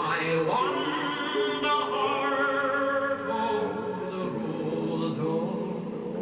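Music: a singer holding long notes in an operatic style, with a slight waver in the pitch, over accompaniment.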